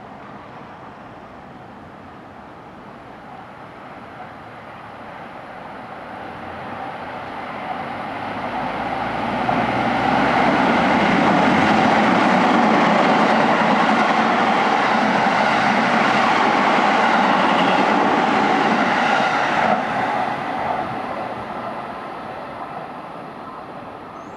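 Tokyo Metro 16000 series electric train running through the station at speed without stopping. It grows steadily louder as it approaches, stays loud for about ten seconds while the cars pass, and then fades away.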